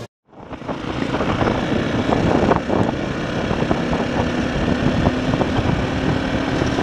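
KTM 525 single-cylinder four-stroke dirt bike running along a gravel road, heard from on the bike with dense wind and road noise. It fades in a moment after the start.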